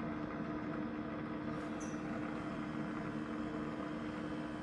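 Roborock S7 MaxV robot vacuum and its docking station running with a steady mechanical hum while the robot sits in the dock.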